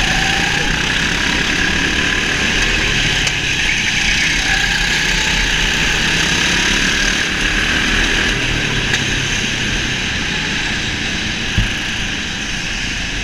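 Go-kart driving flat out, heard from on board: a steady drone of the kart's motor and rushing noise, with a single short knock near the end.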